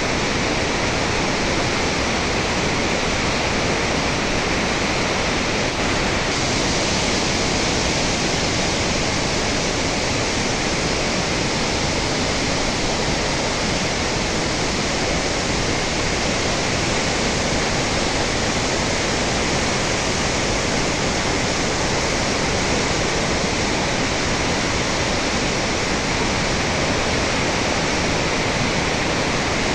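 Loud, steady rush of water released from a hydroelectric dam's spillway and outlet gates, churning in the basin below.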